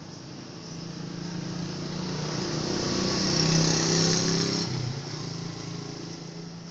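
An engine passes by: a steady motor hum with a rushing hiss that grows louder to a peak a little past halfway, then fades away.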